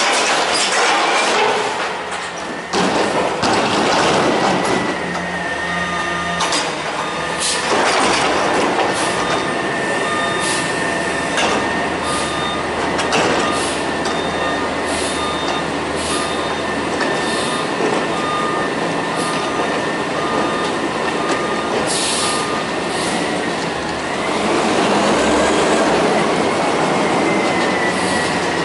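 CCC Amrep front-loader garbage truck working its hydraulic forks and arms, dumping and lowering a steel dumpster: steady hydraulic whine over the running engine, with metal clanks and squeals from the bin and arms. A beeping alarm repeats through the middle.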